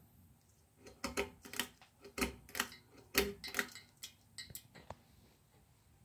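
A Craftmade ceiling fan's pull chain being worked by hand: about a dozen sharp, uneven metallic clicks and taps over some four seconds, from the chain switch and the bead chain and its fob knocking against the fixture.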